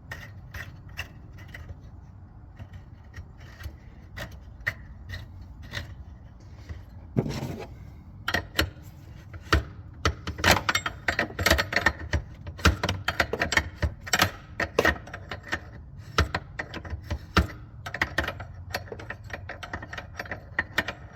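Hand tools clicking and clinking against metal parts in an engine bay, with a dull knock about seven seconds in and then a long, dense run of irregular sharp clicks.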